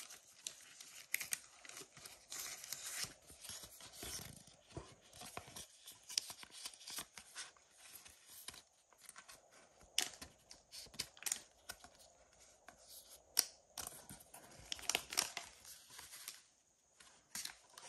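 Pokémon trading cards being handled: cards flicked and shuffled, one slid into a plastic card sleeve, giving an irregular run of short scratchy rustles and sharp clicks.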